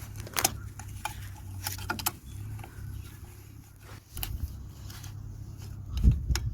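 Light metallic clicks and taps of drum brake parts being handled and fitted into place, with a dull thump near the end.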